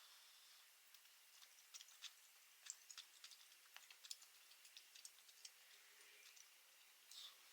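Near silence with faint, scattered short clicks, most of them between about one and five seconds in.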